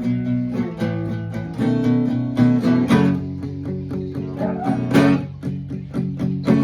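Freestyle guitar playing: a run of plucked notes and chords, each sharply struck and ringing into the next.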